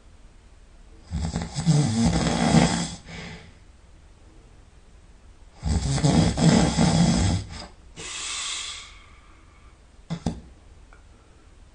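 A person snoring loudly in deep sleep: two long snores, each about two seconds, some four and a half seconds apart, the second followed by a softer breath.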